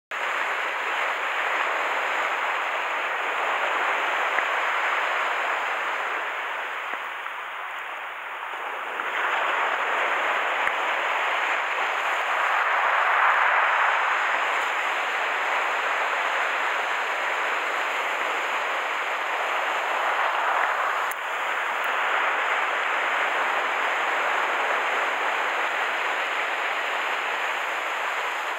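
Surf breaking and washing up the beach close by: a steady rushing of waves that swells and eases as each wave comes in.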